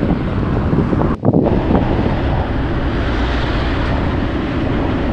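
Wind rushing over the microphone of a camera carried on a moving bicycle, a steady noise with road noise underneath; it drops out briefly about a second in.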